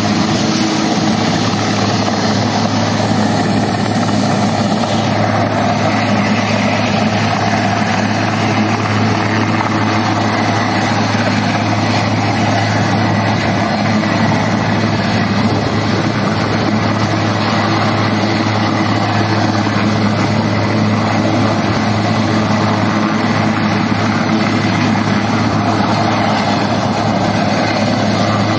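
Westland Sea King helicopter hovering low, its rotor and turbines making a loud, steady drone that holds level throughout.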